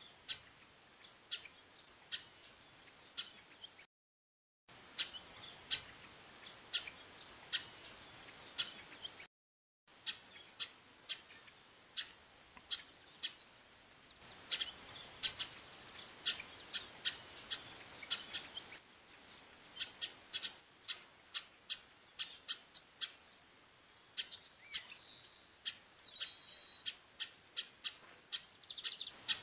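Female chestnut-capped blackbird calling insistently: a long run of short, sharp call notes, about two a second, over a steady high-pitched hiss. The sound cuts out briefly twice, around 4 and 9 seconds in.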